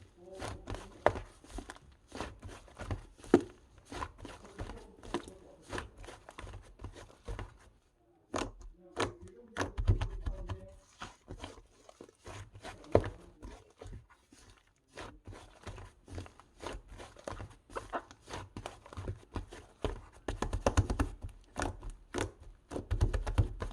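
Slime being handled with the hands: an irregular stream of sticky clicks, pops and squelches as it is pressed, folded and stretched, with denser, heavier squishing near the end.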